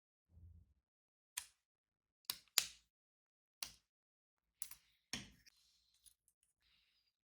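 Plastic gunpla model kit parts clicking during assembly: about six sharp, irregular clicks, with a soft low thump near the start.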